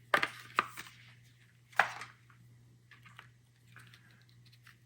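Handling of the RAM's packaging and dense foam: a few sharp clicks and scrapes, the loudest at the start and about two seconds in, then fainter rustles and taps.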